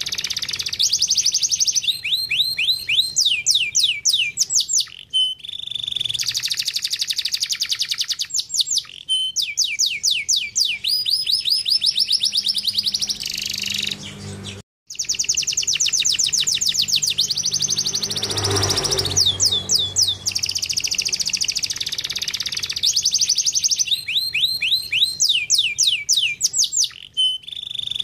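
Domestic canary singing continuously in long, rapid trills of repeated notes, many of them quick descending sweeps, switching from one trill to the next. The song cuts out briefly about halfway through.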